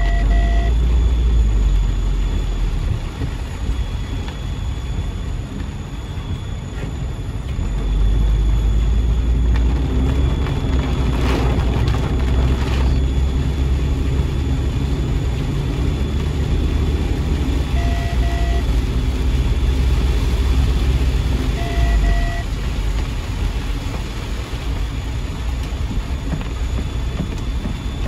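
Car driving through heavy rain, heard from inside the cabin: a steady low rumble of engine and tyres on the wet road under the hiss of rain on the car. A short double beep sounds three times: at the start, and twice later on.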